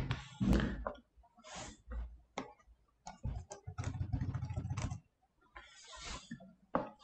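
Quiet desk and computer sounds: scattered clicks, then a rapid run of ticks about midway, like a mouse scroll wheel turning as the page is scrolled. A few soft hissy rustles come in between.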